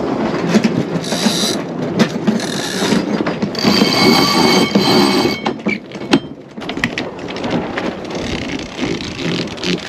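Sailboat cockpit winch turning with rapid ratcheting clicks of its pawls, in spurts of whirring, as the line is hauled around it to furl the jib.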